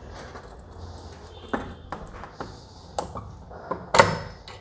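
Screwdriver and metal door-lock parts clicking and knocking irregularly as the lock set's fixing screws are worked out, with the sharpest knock about four seconds in.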